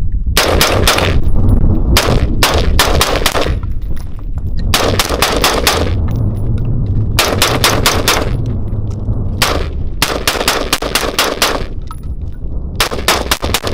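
Davidson Defense Brookite AR-15 rifle, a .223 Wylde with a 16-inch barrel, fired semi-automatically in quick strings of several shots, about seven strings with pauses of around a second between them. The rifle cycles every round without a stoppage.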